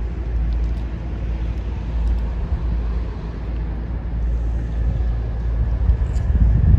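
Wind rumbling on the microphone, a heavy low buffeting that swells a little near the end.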